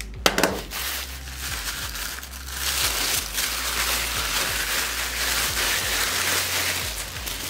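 White packing paper crinkling and rustling as it is pulled and crumpled by hand while a parcel is unwrapped, growing denser from about three seconds in.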